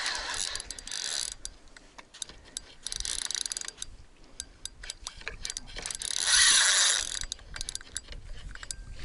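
Nautilus spinning reel wound in short bursts while playing a hooked carp, its gears whirring and clicking; the loudest spell of winding comes about six seconds in.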